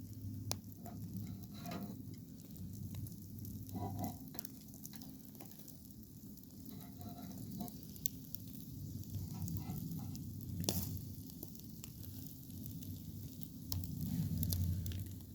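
Chicken sekuwa sizzling as it cooks, with scattered small pops and crackles over a steady hiss and low hum.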